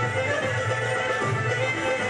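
Greek traditional folk dance music, with a steady repeating bass pattern under the tune.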